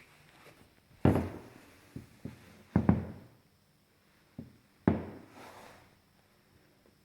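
A handful of separate knocks and thuds. The loudest come about a second in, as a close double knock near three seconds, and about five seconds in, each dying away over a second or so.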